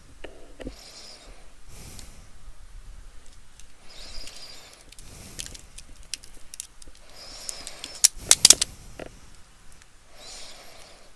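Hands rummaging through spare computer parts: several short rustles and scattered clicks and clacks. The loudest is a quick run of sharp clicks about eight seconds in.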